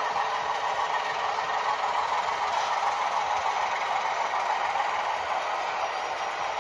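HO-scale model diesel switcher running on the layout: a steady, even hum strongest in the middle range, with no distinct knocks or breaks.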